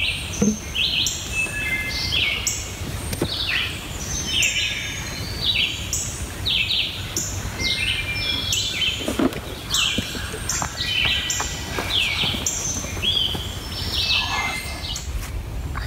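Several songbirds singing at once: many short, overlapping whistled phrases, often falling in pitch, with a steady low rumble underneath.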